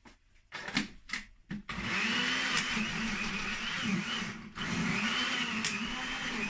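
Countertop blender puréeing boiled tomatoes and peppers. A few knocks as the jar is set on the base, then the motor runs loudly from about two seconds in, its pitch wavering. It cuts out for a moment past the middle and starts again.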